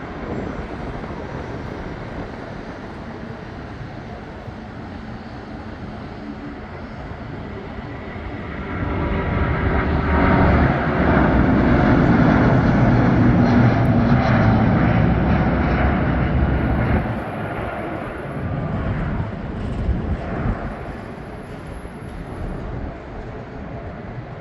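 Airbus A330-941 twin turbofans at takeoff thrust: a jet roar that swells about a third of the way in, is loudest for several seconds as the airliner goes by, then falls away.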